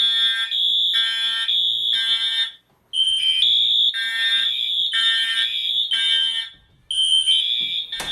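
Fire alarm horns sounding during a system test: loud, piercing tones in a pulsing pattern that repeats about every four seconds, with a short silence before each round.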